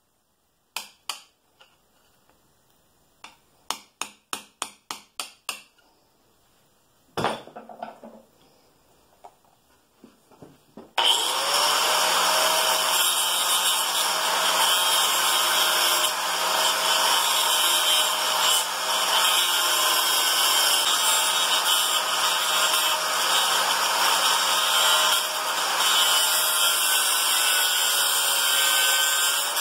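A run of sharp metal taps, about eight in quick succession, then a louder knock with a short ring. About a third of the way in, a 4.5-inch angle grinder comes in abruptly and runs steadily with a high whine, cutting through the head-rotation worm gear of a Bridgeport milling machine.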